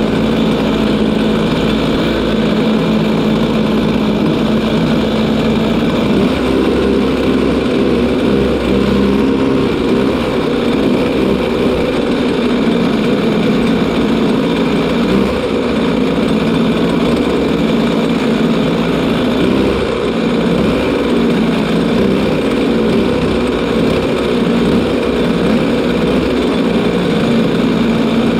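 Several racing kart engines idling together, heard through the onboard camera of a stationary kart, the pitch shifting a little now and then.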